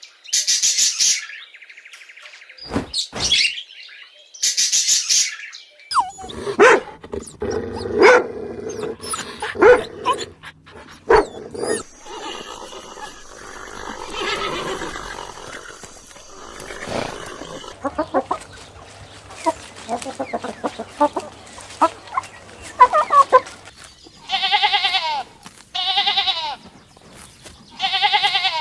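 A string of animal calls from several short clips one after another, ending with three separate pitched calls, each under a second long.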